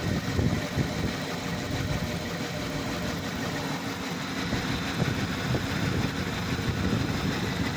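2007 Cadillac Escalade V8 idling cold, with a faint steady high whistle over the engine note: a whistle that shows up when the engine is cold.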